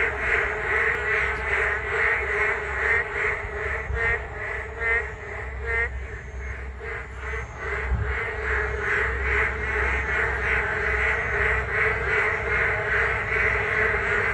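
A large chorus of many frogs calling together: dense, overlapping croaks that pulse and swell without a break.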